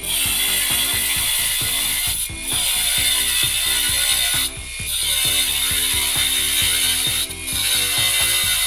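Cordless angle grinder with a 125 mm cut-off disc cutting through steel rebar: a loud, steady high grinding hiss that eases off briefly about two, four and a half and seven seconds in as the disc lets up. Music with a steady beat runs underneath.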